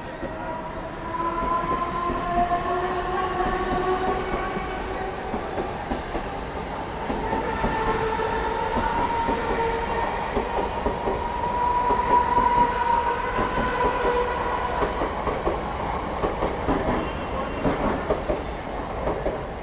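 A Mumbai suburban electric local train (Western Railway EMU) running past close by. It gives a steady high whine that rises a little in the first few seconds, over the clatter of its wheels on the rails.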